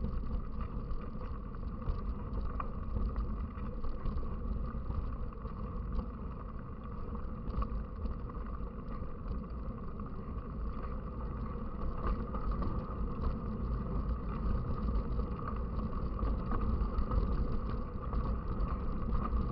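Steady rolling and wind noise from a mountain bike being ridden: a low rumble with scattered small clicks and rattles.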